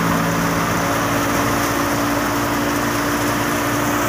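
Tractor engine running at a steady speed, its pitch holding constant.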